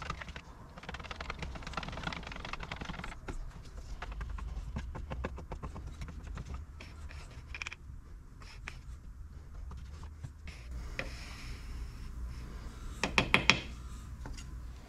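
Stirring a can of very thick paint: the stirrer scrapes and clicks against the can again and again. A few louder knocks come near the end.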